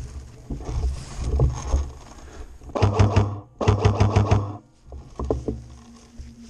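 Two short bursts of rapid, evenly spaced clicking, about a dozen a second, typical of an airsoft electric gun firing full-auto. They come about three and four seconds in, over the rustle of feet moving through long grass and undergrowth.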